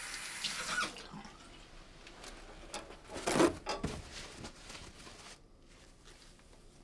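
Water at the bathroom sink in the first second, then a plastic bin liner rustling a little after three seconds in as something is dropped into the wastebasket.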